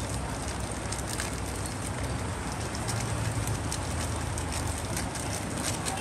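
Steady background hum and hiss with scattered faint light clicks.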